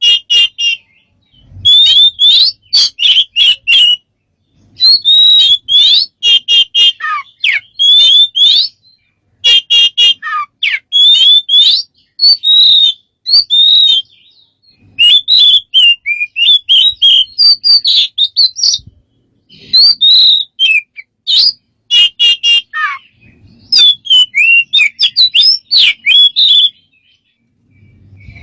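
A bird giving rapid series of high whistled chirps, squeaks and sliding notes in bursts of one to two seconds, with short pauses between them and sharp clicking sounds mixed in.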